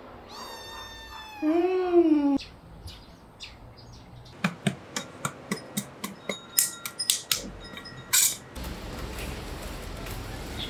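A kitten meows once, a drawn-out call of about two seconds that drops in pitch at the end. A run of about fifteen sharp clicks and taps follows, then a steady soft hiss.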